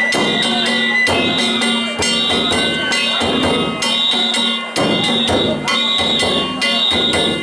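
Danjiri float's festival band (narimono) playing: hand gongs struck in a steady beat of about two strikes a second over drums.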